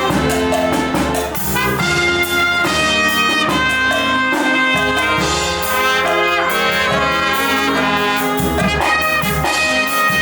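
Live brass band playing, trumpets and trombones carrying the melody over a percussion beat.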